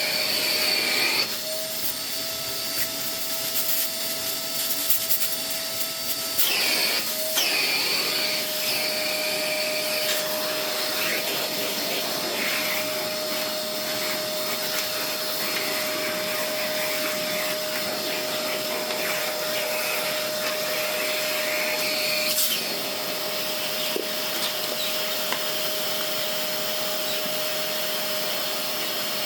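Vacuum cleaner running steadily at full suction: a constant motor whine over a rush of air, with the sound briefly disturbed about seven seconds in and again near twenty-two seconds as dust is drawn in.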